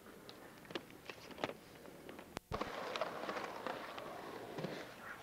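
A few faint knocks and scuffs, then a sharp tape-edit click about two and a half seconds in, followed by skateboard wheels rolling on concrete as a steady rough rumble with occasional clicks.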